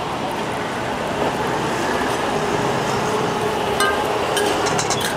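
Steady traffic-like street noise, with a few light clicks in the second half.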